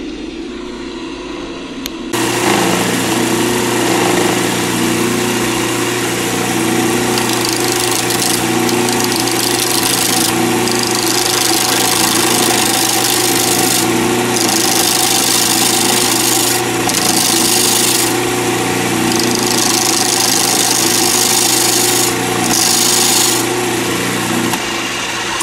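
Pen-turning lathe running while a skew chisel cuts a square zebra-pattern acrylic resin blank. A steady motor hum sits under a hissing cut that comes and goes in several passes, with the tool chipping against the blank's still-square corners. Everything grows louder about two seconds in, and the lathe winds down near the end.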